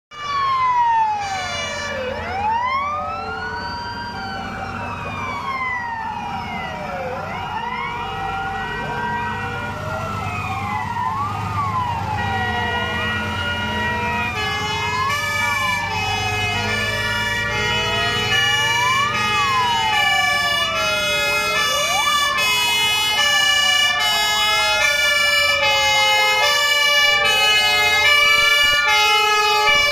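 Several emergency-vehicle sirens sounding at once as a convoy of police car, fire engines and ambulances passes. Wailing sirens rise and fall every couple of seconds. From about halfway, two-tone sirens alternating between two pitches join in, over a low rumble of truck engines. The whole sound grows slowly louder.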